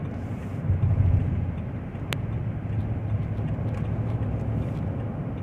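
Car with an engine misfire being driven: a steady low engine and road rumble that swells briefly about a second in. A single sharp click comes about two seconds in.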